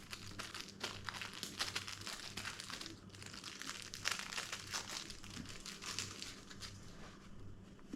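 Plastic packaging crinkling in irregular crackles as it is handled and opened, with a faint steady low hum underneath.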